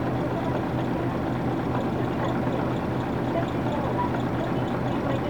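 A bus's Nissan Diesel PF6 six-cylinder diesel engine running at a steady, unchanging pitch, heard from inside the cabin.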